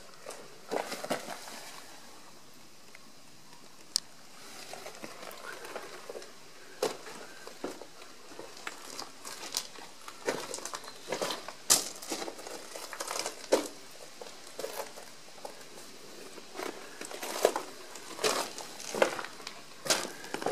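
Footsteps crunching on crushed-stone gravel: an irregular series of crunches, sparse at first and coming more often from about halfway through.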